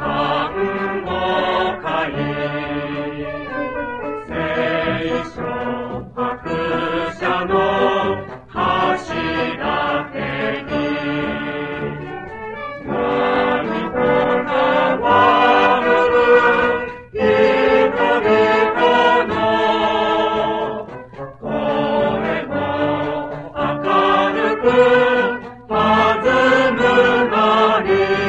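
Mixed choir singing a march-like song in phrases of about four seconds, accompanied by a brass band, played from a 33⅓ rpm flexi-disc (sonosheet) record.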